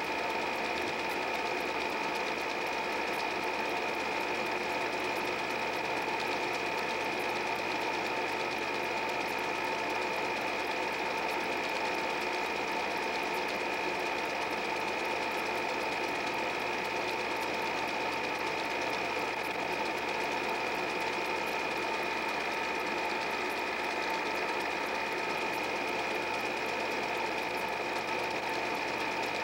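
8 mm film projector running steadily: a continuous mechanical clatter with rapid fine ticking and a steady high whine.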